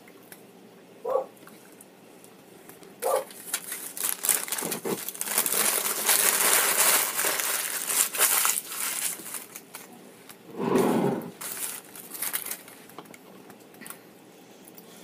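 Paper napkin and wrapping paper being crumpled up by hand: a crackling rustle lasting several seconds from about four seconds in, with lighter rustles before and after. A brief low hum comes near eleven seconds.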